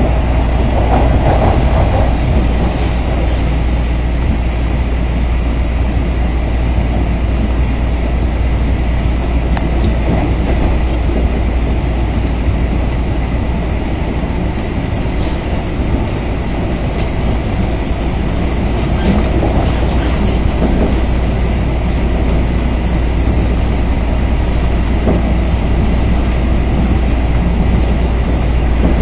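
Toronto subway train running between stations: a steady, loud rumble of the train in motion, with a few faint clicks.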